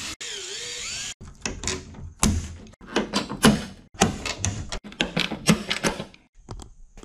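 Cordless drill spinning a large bit to countersink a rivet hole, its pitch dipping briefly as the bit cuts, stopping about a second in. Then a hand rivet tool is squeezed again and again, with sharp clicks and snaps as it pulls pop rivets.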